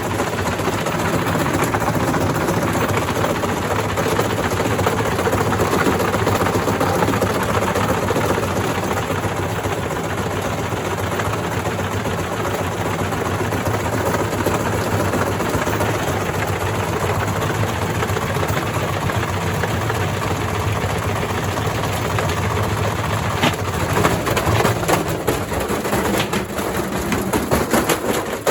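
Indesit IWDC6105 washer-dryer spinning at full speed on its hot-wired motor, a loud steady hum with the cabinet rattling as the machine shakes itself apart. Near the end the hum drops away and loud knocks and clattering take over.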